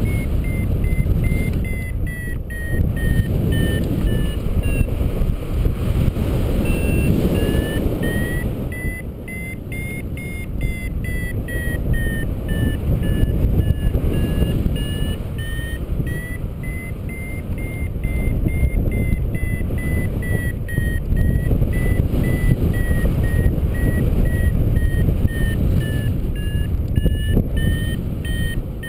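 A paragliding variometer beeping rapidly throughout, its pitch drifting up and down from moment to moment: the climb tone that signals the glider is rising in lift. Loud wind rushes over the microphone underneath.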